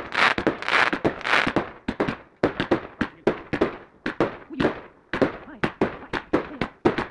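Aerial fireworks salute going off in quick succession: a steady run of sharp bangs, several a second, with a crackling hiss of bursting stars in the first second and a half.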